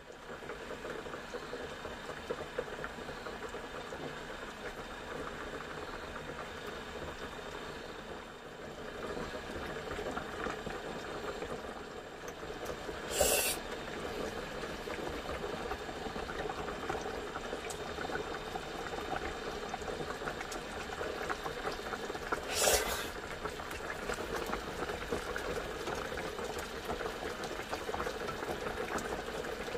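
Soup bubbling at a boil in an aluminium pot on a portable gas stove, a steady bubbling and crackling, with two brief sharper sounds partway through.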